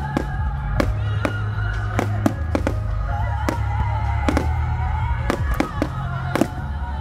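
Fireworks going off in a continuous barrage, sharp bangs and reports a few per second, over music with a steady bass playing throughout.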